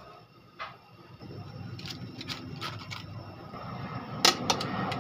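Cabbage leaves being pressed down into a large aluminium cooking pot: scattered light clicks and knocks against the pot, with a few sharp, louder clanks near the end, over a steady low rushing noise that builds after about a second.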